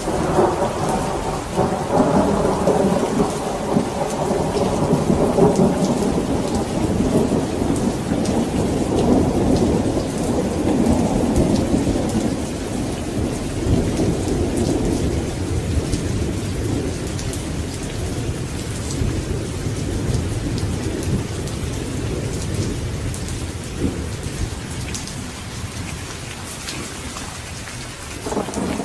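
Steady heavy rain with thunder. A long roll of thunder breaks at the start and slowly fades over about fifteen seconds, and another roll begins near the end.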